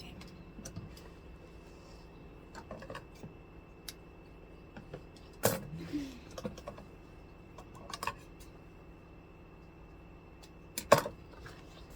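Scattered clicks and knocks from handling leather and clips at a sewing machine, the loudest a little over five seconds in and near the end, over a faint steady high whine.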